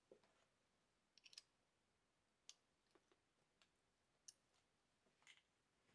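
Near silence with a few faint, scattered metallic clicks as a hex key is fitted to and worked in the lathe compound rest's pivot bolt.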